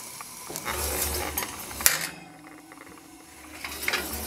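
A metal oven rack being slid out, scraping and rattling, while the glass baking dish and ceramic and glass ramekins on it clink; the sharpest clink comes just before two seconds in, with a few lighter clicks near the end.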